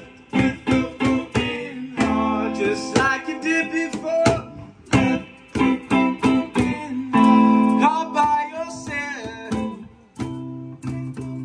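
Acoustic guitar strummed in a steady run of chords.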